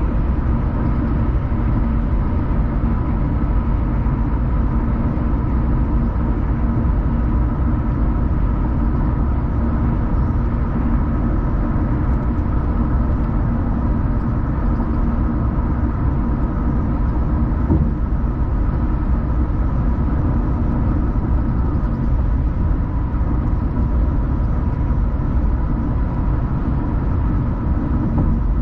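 Steady driving noise of a car moving along the road: a constant low rumble of tyres and engine with a faint steady hum, unchanging throughout.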